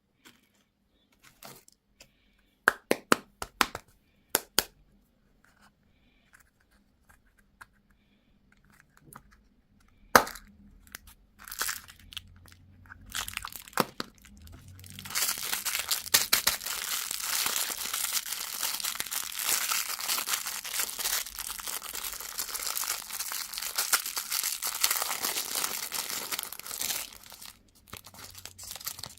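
Close-miked crunching and crackling of sweets being handled and eaten. A few sharp crunches come in the first seconds and one louder crack about ten seconds in, then dense, continuous crackling runs from about fifteen seconds in until near the end.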